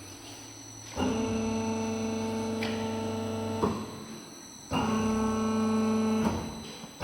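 A welding positioner's drive running in two bursts as it is worked from its controls: a steady whine with a low mains-type hum, starting abruptly and winding down each time it stops.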